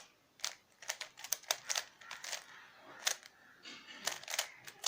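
3x3 Rubik's cube being turned by hand: an irregular run of sharp plastic clicks as its layers are twisted, some in quick groups of two or three.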